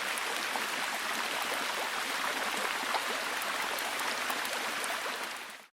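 Forest stream running with rain falling, a steady rush of water flecked with small drops. It fades out quickly near the end.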